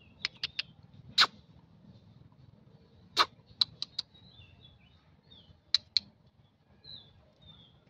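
Short, sharp animal chips in irregular groups of one to three, the loudest single ones about a second and three seconds in, with faint high bird-like chirps in between.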